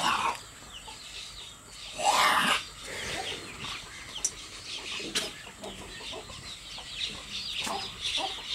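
Chickens clucking with small birds chirping, and one louder squawk-like call about two seconds in.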